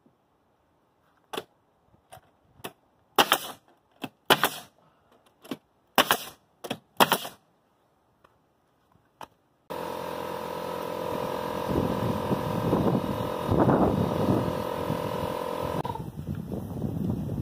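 Pneumatic nailer shooting nails into a wooden-looking corner trim board on house siding: a series of separate sharp cracks, a few of them loud with a short hiss of air. About ten seconds in, the sound changes abruptly to a steady rushing noise with a hum.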